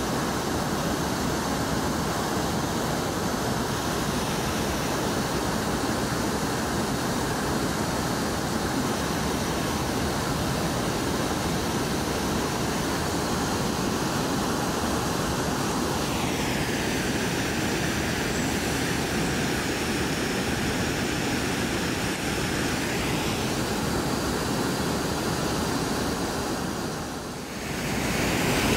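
Steady rushing of the Brooks Falls waterfall and river. For about seven seconds in the middle a higher hiss is added on top, and near the end the sound dips briefly before returning louder.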